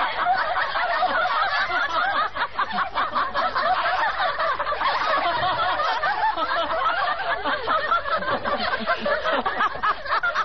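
A group of women and girls laughing together, many high voices overlapping in a continuous burst of laughter.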